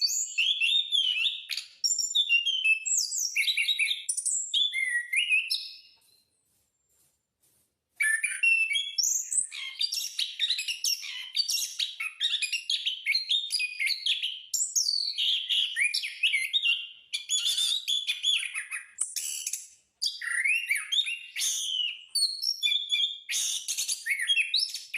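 Anis (punglor) ground thrush singing a long, rapid, varied song of whistled phrases, the continuous 'ngerol' song of a bird in top form, broken by a pause of about two seconds a quarter of the way in.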